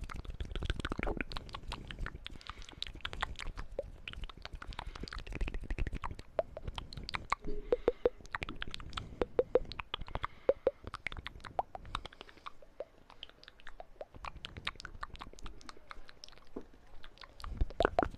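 Close-miked ASMR mouth sounds: a fast, dense run of wet clicks and smacks, with a few short hollow pops in the middle.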